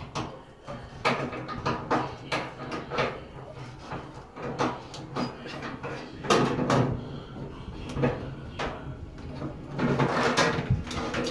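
Irregular knocks, clanks and scrapes of metal as a gas dryer is worked loose from its gas line and vent behind it, the loudest bumps about six seconds in and again near the end.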